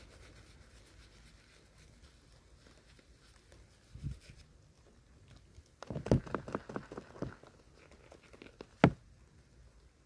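Handling knocks close to the microphone: a single thump about four seconds in, a quick run of about eight rubbing knocks lasting about a second and a half, and one sharp click near the end, over a faint background.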